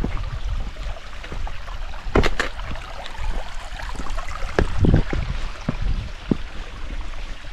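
Irregular footsteps and knocks on a trail over a steady rushing noise with a deep rumble.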